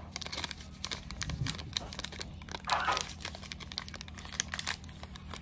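Small plastic accessory packet crinkling and crackling in the hands as it is opened, a steady patter of small irregular crackles.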